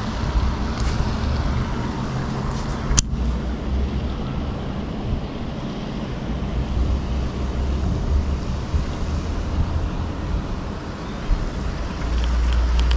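Steady low outdoor rumble, with one sharp click about three seconds in.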